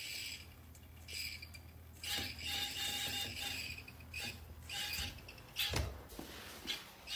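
A cat scrabbling on carpet as it pounces on and chases a string toy dragged across the floor: short bursts of scratching and rustling, several times, some close together.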